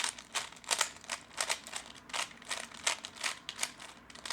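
3x3 speedcube being turned quickly by hand: a steady run of short plastic clicks and clacks, about three to four turns a second.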